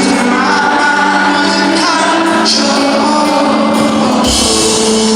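Rock band playing live with a male lead singer, the sound of a large hall around it.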